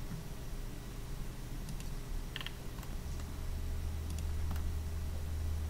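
A few scattered computer mouse clicks over a steady low hum.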